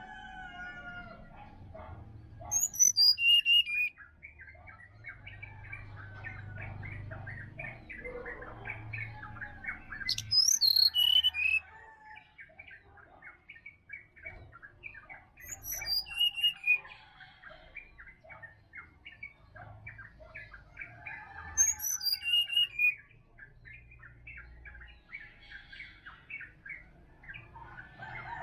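Brown-chested jungle flycatcher singing in a forest bird chorus: four loud, high song phrases, each falling in pitch and lasting about a second, roughly six seconds apart, over a steady chatter of many smaller bird chirps and a low rumble.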